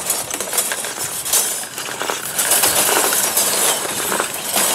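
Oiled steel blade of a 100-foot tape measure rustling and scraping as it is pulled through a rag, with light metallic clinks as the loose blade shifts and slaps over a hard plastic surface.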